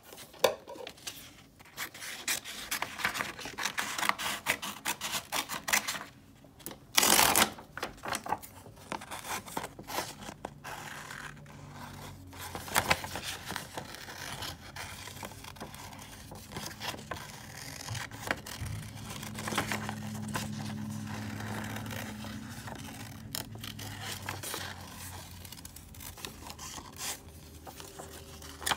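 Scissors cutting through sheets of drawing paper: irregular snips and paper rustling as the sheet is turned, with one brief louder burst about seven seconds in.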